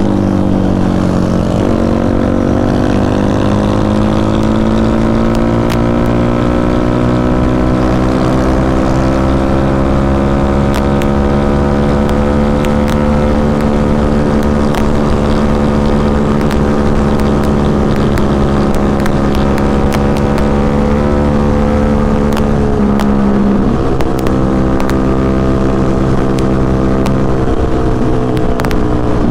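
Yamaha WR155R's single-cylinder engine running hard at high revs on a flat-out top-speed run. Its pitch climbs slowly for the first half, eases a little, then drops suddenly about 23 seconds in and holds.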